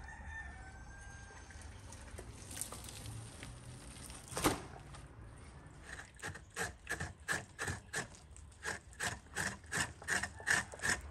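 A large serrated knife worked back and forth through raw beef tripe on a wooden table, in short, even strokes about three a second that start about six seconds in. A single sharp knock comes about four and a half seconds in.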